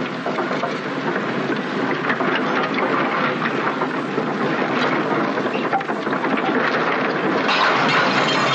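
Runaway high-sprocket crawler tractor, its tracks removed, rolling free on its bare undercarriage with a steady heavy rumble and clatter of steel. It grows loudest near the end as the machine rams into a pickup truck.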